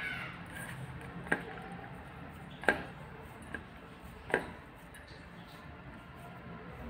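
Hand squeezing and pressing a crumbly ground-peanut and jaggery mixture in a stainless steel bowl, shaping a ladoo. Four sharp knocks from the steel bowl come through the first few seconds.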